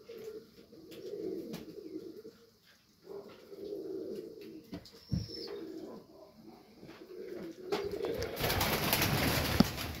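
Domestic pigeons cooing in a loft. Near the end there is a loud rustle lasting about a second and a half.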